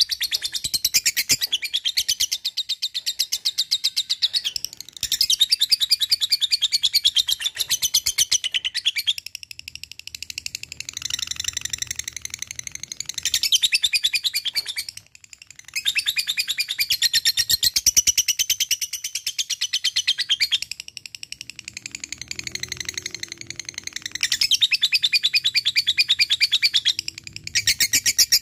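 Lovebird singing the long 'ngekek' chatter: long runs of very fast, shrill stuttering notes lasting several seconds each, broken by short pauses.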